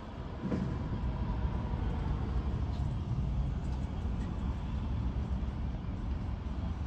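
CSX diesel freight locomotive and its string of freight cars rolling slowly down the track: a steady low rumble of engine and wheels.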